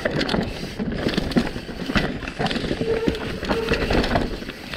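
Mountain bike rolling down a rough dirt trail: tyre rumble with the chain and frame rattling and knocking over bumps, and two brief squeaks about three seconds in.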